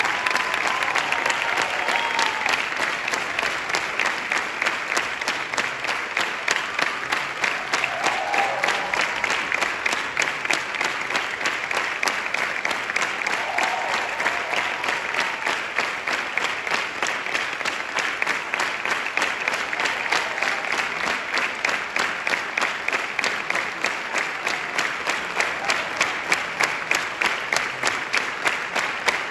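Sustained applause from a concert hall audience and orchestra players: dense, steady hand-clapping, with a few voices calling out now and then.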